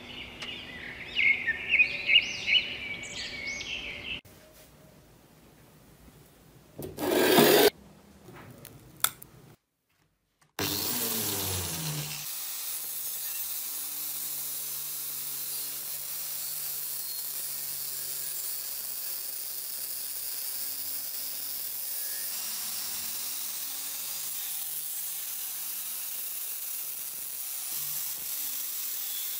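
Short scraping and handling sounds with one brief loud burst in the first seconds. About ten seconds in, an angle grinder spins up and runs steadily with an abrasive disc against the steel blade of a rusty cleaver, grinding off rust.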